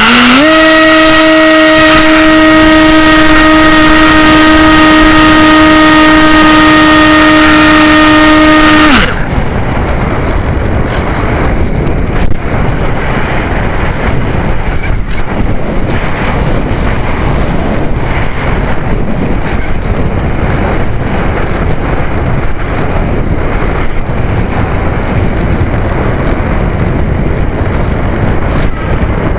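AXN RC model plane's electric motor and propeller whining at steady full power on the climb, heard loud from the onboard camera, then cut off abruptly about nine seconds in. After that, wind rushes and buffets over the camera microphone as the plane glides with the power off.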